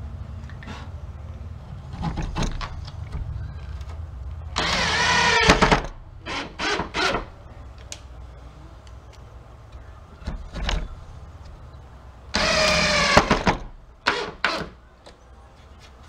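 Cordless drill-driver driving two screws into wood: each is about a second of motor whine that bends in pitch as the screw bites, followed by two or three short trigger bursts to seat it. A low steady hum runs underneath.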